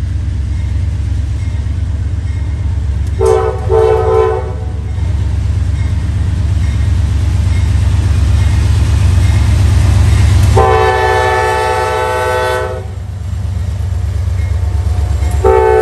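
A pair of GE AC44C6M diesel locomotives pulling a freight train past at close range, with a steady low engine rumble. The lead unit's multi-note air horn sounds two short blasts about three seconds in, a long blast of about two seconds near the middle, and starts another blast near the end.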